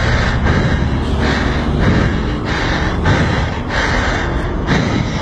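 Motorcycle riding along a highway: a steady engine and wind rumble, with rhythmic panting breaths about twice a second over it.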